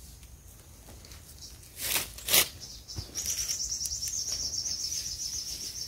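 A gloved hand scraping and scooping dry, sandy soil out of a hole, with two sharp scrapes about two seconds in. From about three seconds a high, rapid, steady trill from a wild creature starts up and keeps going.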